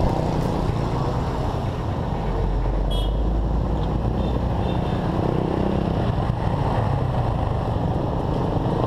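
Motorcycle engine running steadily under way, with wind and road noise on a helmet-mounted camera. A brief high beep sounds about three seconds in, with fainter short ones a second or two later.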